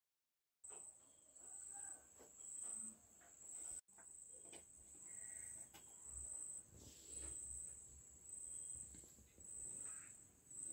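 Faint, steady high-pitched trilling of crickets, starting about half a second in, with soft small knocks underneath.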